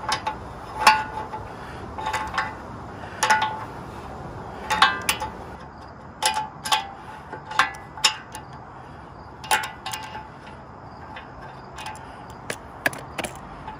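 Adjustable wrench clinking against a motorcycle's O2 sensor and exhaust header pipe as it is worked loose and refitted for each turn. The sharp metallic clinks each ring briefly and come irregularly, about one or two a second.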